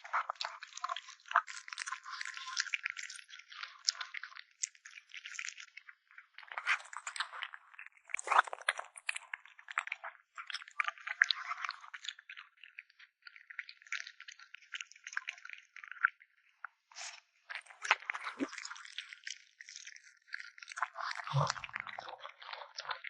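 Kitten chewing and slurping meat close to the microphone: a steady run of wet, irregular crackling clicks, with a brief low bump near the end.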